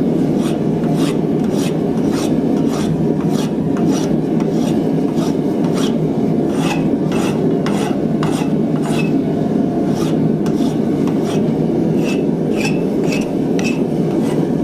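Hand file rasping across a piece of hot half-inch steel bar in steady back-and-forth strokes, about two to three strokes a second, taking down a shoulder.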